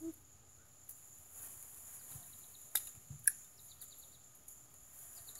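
Quiet outdoor ambience: a steady high insect drone, a quick run of high chirps a little past halfway, and two sharp clicks around three seconds in.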